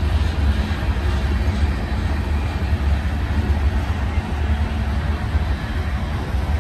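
Freight train of covered hoppers and tank cars rolling past, a steady deep rumble of steel wheels on rail.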